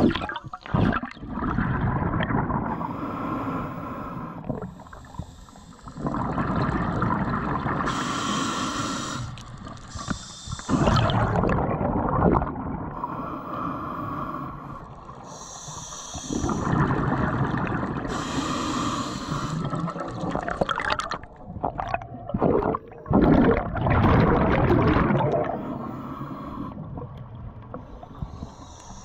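A diver's breathing heard underwater: long rushing, bubbling surges of air a few seconds each, with quieter gaps between them, muffled by the water and the camera housing.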